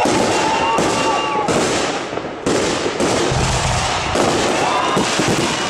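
Fireworks display: shells launching and bursting overhead in a dense, continuous crackle of reports, with a deep boom about three and a half seconds in.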